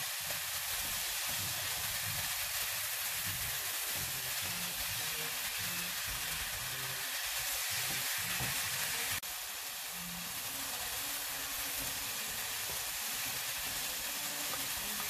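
Cauliflower rice and vegetables frying in a nonstick pan, a steady sizzle, with a wooden spatula stirring through them. A faint click about nine seconds in, after which the sizzle is slightly quieter.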